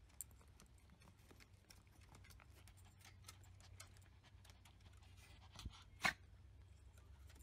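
Near silence: a faint low hum with scattered soft ticks, and one short, sharp sound about six seconds in.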